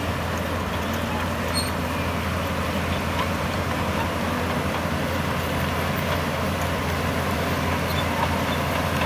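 Diesel engine of a heavy construction machine running steadily, a low drone with no sharp knocks.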